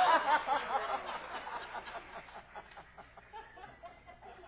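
Audience laughing at a punchline, loudest at the start and dying down over the next few seconds.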